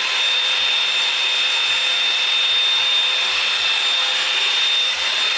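Revlon One-Step Volumizer hot-air brush running steadily: a hair dryer's rush of air with a steady high-pitched motor whine.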